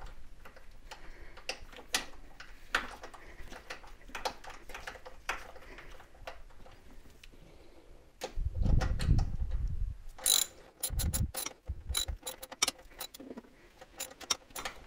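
Hands working on a car's hard steel brake line and its fittings: scattered small metal clicks and clinks. About eight seconds in comes a heavier low rumbling knock lasting a second or two, followed by a quick, uneven run of sharp metallic clicks.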